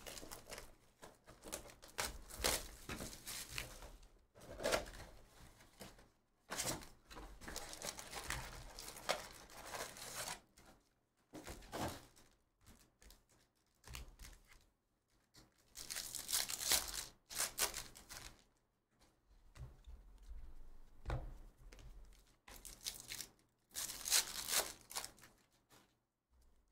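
Topps Chrome baseball card packs being torn open and their wrappers crinkled by hand, then the cards slid and flipped through, in irregular bursts of rustling with short pauses between.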